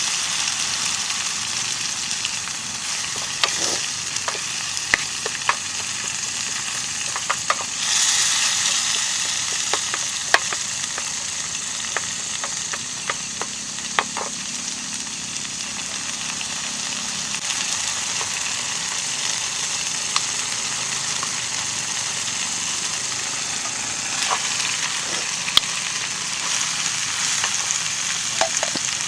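Food frying in hot oil in a pan: a steady sizzle with scattered sharp pops and a brief louder surge of sizzling about eight seconds in.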